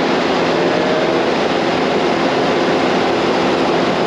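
Combine harvester running steadily while unloading soybeans, with the engine's steady hum under a wide even roar of machinery.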